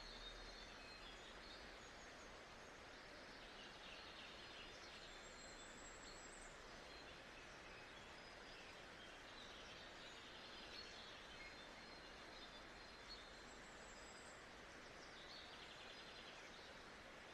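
Faint nature-sound ambience: a steady hiss with birds chirping in a few short spells.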